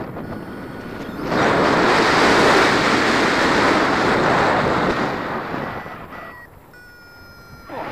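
Wind rushing over the microphone of a paraglider in flight, a steady roar of airflow that surges strongly about a second in and eases off over the last few seconds.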